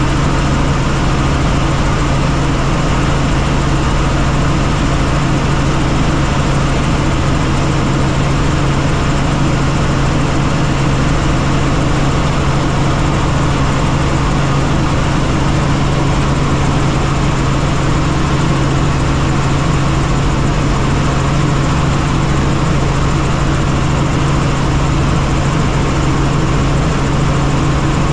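Helicopter in flight: a loud, steady drone of engine and rotors with a strong low hum, unchanging throughout.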